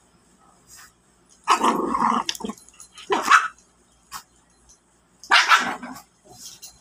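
Shih Tzu and Jack Russell terrier puppy play-fighting, with growling barks in three loud rough bursts, the first about a second and a half in.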